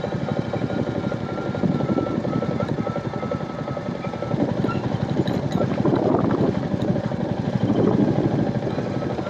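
Royal Enfield Meteor 350's single-cylinder engine running steadily under way, its firing pulses even, growing a little louder in the second half.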